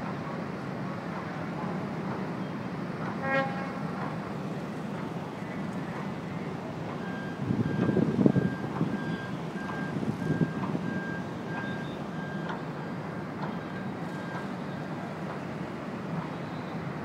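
Short blast of the ferry Vitsentzos Kornaros's horn a little over three seconds in, over a steady harbour rumble. Later a vehicle's reversing beeper sounds for several seconds, a little over twice a second, and a brief loud rush of low noise swells around eight seconds in.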